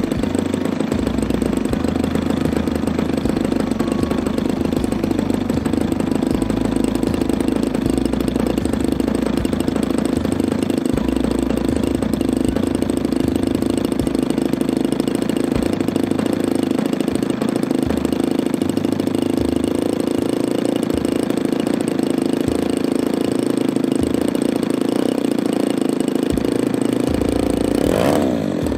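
Small gasoline engine of a Great Planes U-Can-Do RC plane idling steadily on the ground, then revving up near the end.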